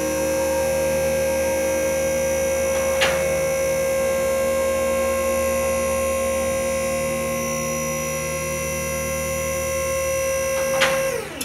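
Four-post car lift's hydraulic power unit running steadily as it raises the car, an electric motor and pump humming at one even pitch. There is a sharp click about three seconds in and another near the end. The motor then cuts off, its pitch falling away as it spins down.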